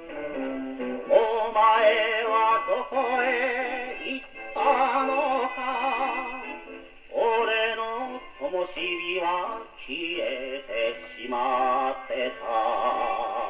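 A Sankyo Goldring wind-up portable gramophone playing a 78 rpm shellac record of a Japanese popular song through a steel needle: a melody with strong vibrato over accompaniment.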